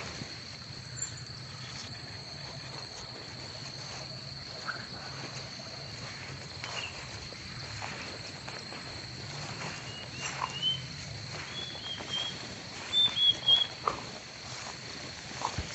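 Origami paper being handled and creased by hand, with soft crinkles and scattered light ticks, over a steady high-pitched tone and a low hum. A few short chirps come in past the middle, the loudest a quick group of three near the end.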